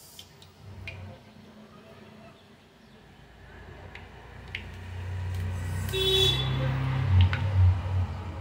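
Breaded chicken drumsticks deep-frying in hot oil in a wok, the oil sizzling and crackling as they go in, with a few sharp pops in the quieter first seconds. A low rumble swells and gets loud in the second half, with a brief high tone about six seconds in.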